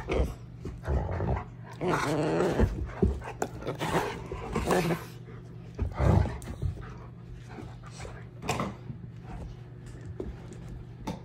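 Dog growling and vocalising in rough play, in irregular bursts, the longest about two seconds in, over a steady low hum.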